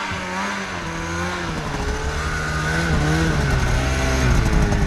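Mountain snowmobile engine approaching and getting louder, its pitch rising and falling as the rider works the throttle across a sidehill traverse.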